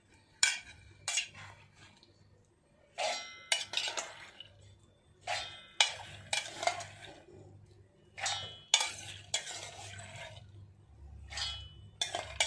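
Steel ladle scraping and clinking against a steel pot and a steel mixer-grinder jar as soaked whole moong beans are scooped across. The clinks come in bursts every second or two, some with a short metallic ring.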